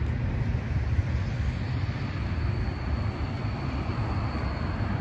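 Suburban train running, a steady low rumble, with a faint high whine joining in about a second and a half in.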